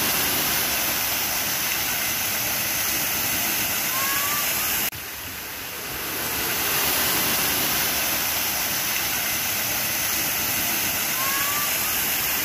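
Steady rushing and hissing of water from the waterpark's pool fountains and sprays. It cuts out abruptly about five seconds in and swells back up over the next couple of seconds.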